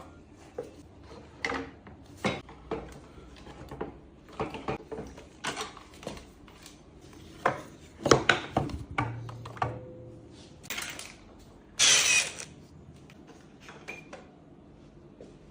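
Irregular metallic clicks, knocks and ratcheting of hand tools and engine parts being handled during the teardown of a Yamaha YZ450F engine. There is a brief low hum about nine seconds in and a short burst of hiss about twelve seconds in.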